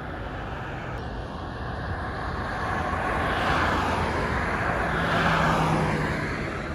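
A vehicle passing on the highway: tyre and engine noise swells from about two seconds in, peaks, and fades near the end, with a brief low hum as it goes by.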